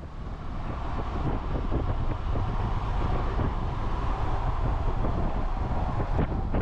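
Camper van driving along a road, heard through a camera mounted on the outside of the van: a steady low rumble of road and wind noise with wind buffeting the microphone, growing louder over the first second or two.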